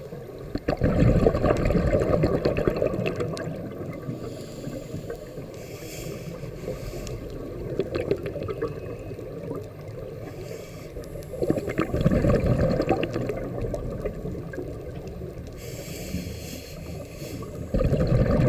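Scuba diver breathing through a regulator, picked up underwater: long bursts of bubbling, crackling exhaust about a second in, again around twelve seconds and at the very end, with a softer hiss of inhalation between them.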